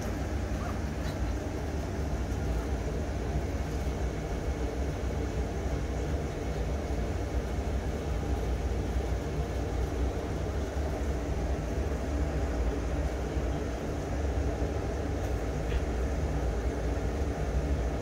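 Wind buffeting the microphone, a steady fluttering rumble with a faint low hum beneath it.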